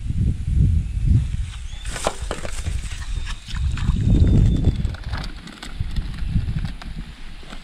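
Uneven low rumbling of wind or handling noise on the microphone, with scattered crackles and rustles from about two to six seconds in.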